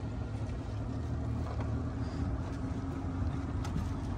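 Outboard motor on a small inflatable boat running steadily, with a steady low hum and a higher steady tone coming in about halfway through.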